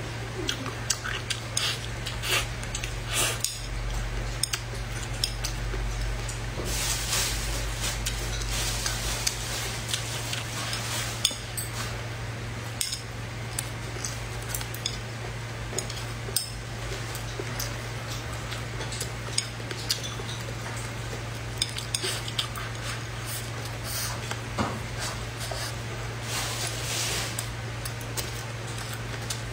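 Chopsticks clicking and scraping against a porcelain rice bowl in short, scattered taps, with close-up chewing, over a steady low hum.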